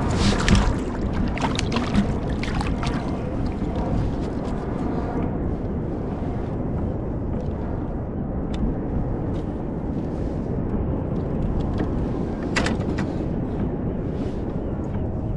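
Steady low wind noise on the microphone, with sea water moving around a fishing kayak on the ocean. A few sharp knocks come near the start, and one more about twelve seconds in.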